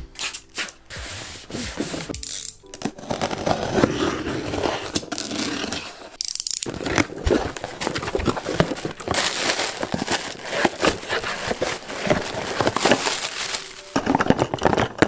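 Cardboard shipping box being opened and unpacked by hand: flaps scraping, plastic air-cushion packing crackling, and small cardboard product cartons rubbing and knocking together, with a short pause about six seconds in.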